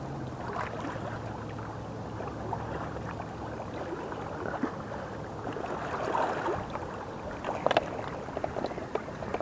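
Steady rush of water pouring through a dam spillway. A few sharp clicks and knocks come near the end.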